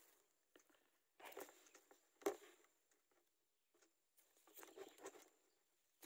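Faint rustling and scratching of dry grass nest material in a few short bursts, as the newly hatched chicks shift about in the nest, with one sharp tap about two seconds in.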